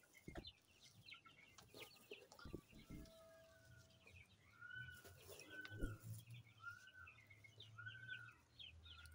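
Chickens calling faintly: from about halfway in, a short rising-and-falling call repeats about once a second, over fainter high cheeps. A few soft knocks come in the first three seconds.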